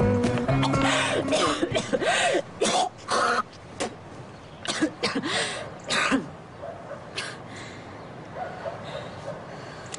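A person's non-word vocal sounds: a string of short, breathy bursts like coughing and throat clearing over the first six seconds, then it goes much quieter.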